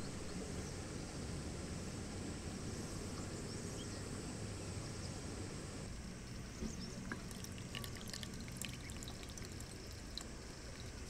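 Water pouring and trickling steadily. From about six and a half seconds in come light clicks and taps as a plastic coffee brewer is handled and set onto a mug.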